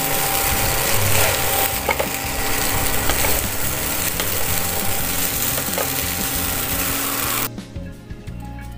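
Vegetable fried rice sizzling in a hot nonstick pan while being stirred and tossed with a wooden spatula. The sizzle cuts off suddenly near the end.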